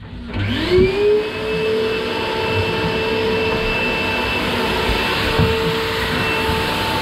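A shop vacuum or dust extractor motor switches on, whining up in pitch over about a second, then runs at a steady pitch.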